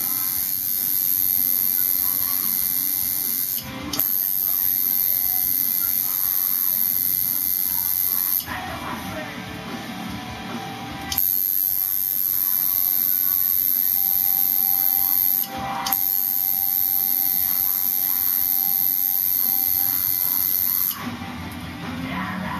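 Coil tattoo machine buzzing steadily as it inks skin. The buzz stops and restarts several times: briefly about four seconds in and again past the middle, for a couple of seconds around the nine-second mark, and again near the end.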